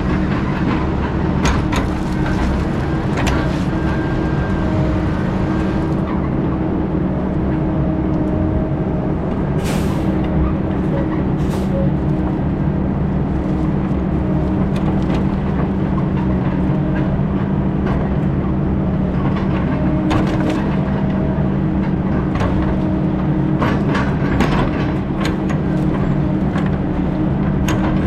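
Heavy diesel engine of logging equipment running steadily at a constant speed, with two short hisses about ten and eleven and a half seconds in.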